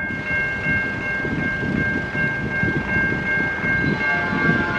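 Distant diesel freight locomotive's horn sounding a long, steady high-pitched chord, with more notes joining about four seconds in, over a low rumble.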